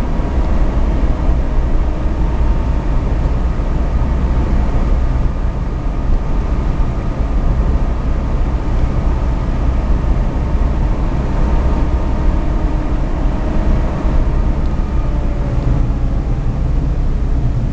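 Mitsubishi Lancer Evolution X running, with a strong, steady low rumble and a faint, steady high whine above it that shifts a little in pitch around the middle. The whine is the fault the owner is trying to trace.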